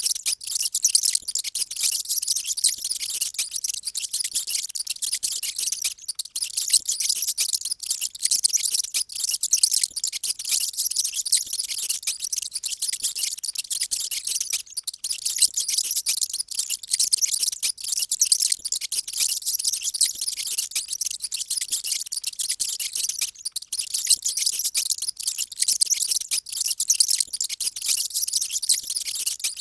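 Many mice squeaking loudly at once: a dense, unbroken mass of overlapping high-pitched squeaks.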